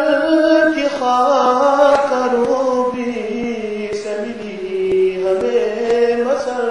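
A man's voice chanting an Urdu naat, a devotional poem in praise of the Prophet, in long, held phrases that glide up and down in pitch.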